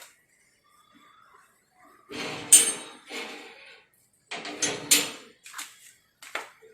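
Metal cookware clattering: pots and utensils knocked and set down in two bursts of clanking, each with one louder ringing clank.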